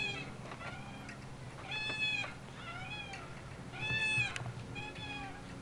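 Swing set squeaking in time with a swinging child: a rising-and-falling squeal about once a second, stronger and weaker squeals taking turns.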